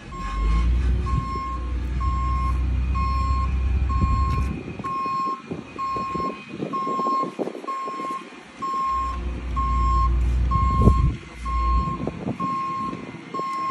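A vehicle's backup alarm beeping steadily about once a second, over a low engine rumble that drops away midway and returns. Short knocks and scrapes come in and out.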